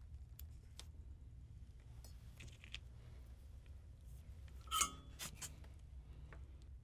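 Faint workbench handling noises over a steady low hum: scattered small clicks as a wire and a small circuit board are handled, then a brief metallic clink with a short ring a little under five seconds in, as tools are picked up for soldering.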